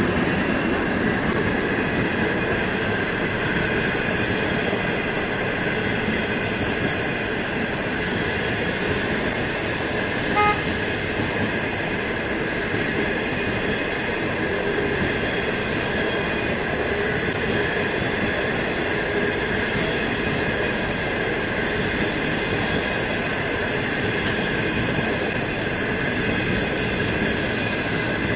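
A long passenger train rolling past close by, an HXD3D electric locomotive followed by a string of passenger coaches, their wheels running over the rails in a steady, continuous rumble with steady tones above it. A short sharp chirp is heard about ten seconds in.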